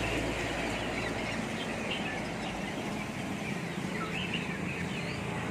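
Chickens and other caged birds calling together: a busy, steady mix of clucks and many short chirps.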